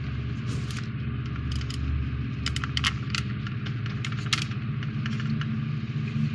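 Scattered light clicks and taps of plastic model parts and a plastic spring clamp being handled and clamped onto a model kit's hull, over a steady low hum.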